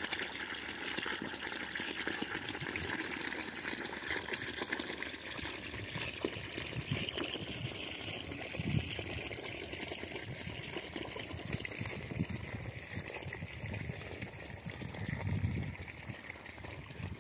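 Water gushing from a corrugated plastic hose onto muddy soil and running along a shallow irrigation channel, a steady splashing and trickling.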